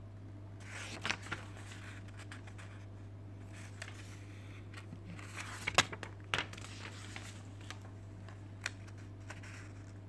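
Paper pages of a thick recipe book being turned and smoothed by hand: soft rustling with a few sharp flicks, the loudest about six seconds in, over a steady low hum.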